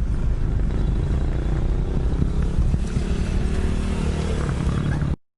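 A motor vehicle running, with a heavy low rumble and a faint rising engine tone in the middle; it cuts off suddenly about five seconds in.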